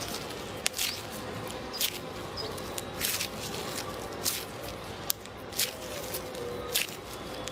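Slime being squeezed and pressed by hand, giving short wet squishes and pops about once a second at an uneven pace.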